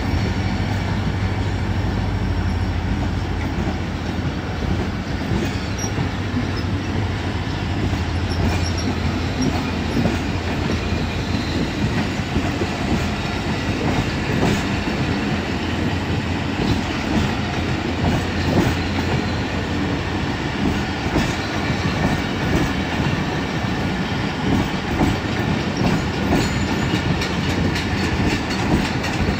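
Passenger train coaches rolling past on the rails with a steady rumble and clickety-clack of wheels over the rail joints. A low hum fades out within the first several seconds, and the wheel clicks come quicker near the end as the train gathers speed.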